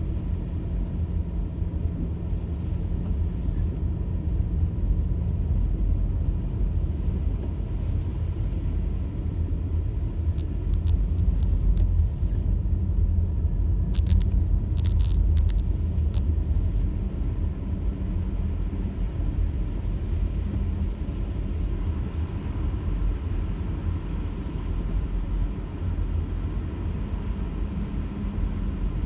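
Car driving: a steady low rumble of engine and road noise, with a few short clicks about halfway through.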